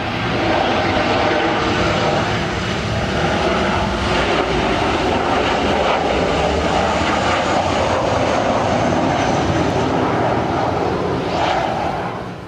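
Jet engines of a Boeing 737-800 on landing approach, passing low overhead: a loud, steady rush of jet noise with a faint high whine. The sound drops off sharply near the end.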